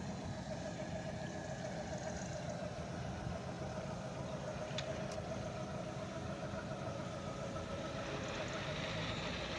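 An engine idling steadily: an even hum with a slightly wavering tone, with a couple of faint clicks about five seconds in.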